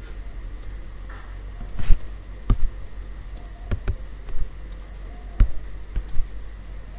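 About half a dozen sharp clicks, spaced irregularly a second or so apart, from a computer being operated to scroll and page through a PDF document, over a steady low hum.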